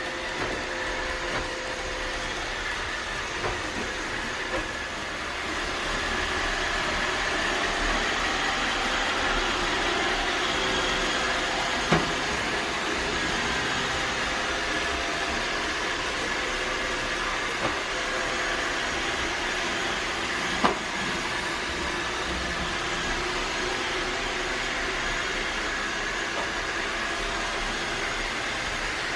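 Vacuum cleaner running with a steady whirring hum, with a few light knocks along the way.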